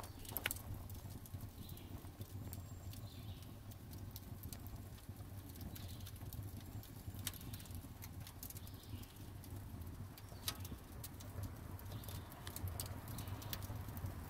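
Fire of glowing coals burning in the barrel smoker's firebox during its seasoning burn-in, giving off irregular small crackles and pops over a low steady hum.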